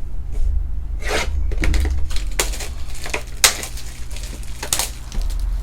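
A box of trading cards being handled and opened: several short scraping, rubbing bursts of packaging and cardboard.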